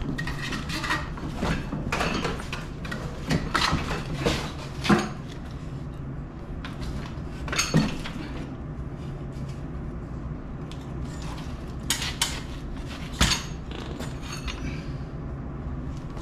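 Metal clanking and knocking as a snowmobile's rear suspension skid is worked out of the track: a quick run of knocks over the first few seconds, then a few single clanks later on.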